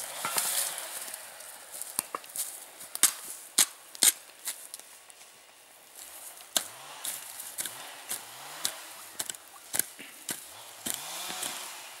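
Long-handled hand tools chopping and scraping into dry forest floor and soil: irregular sharp strikes, about a dozen, with rustling and scraping of litter between them. This is the sound of a firebreak being cut down to bare mineral soil.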